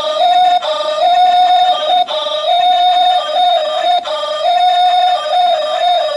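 Light-up musical spinner toy's built-in sound chip playing a loud, simple electronic tune of stepped beeping notes, repeating in phrases of about two seconds.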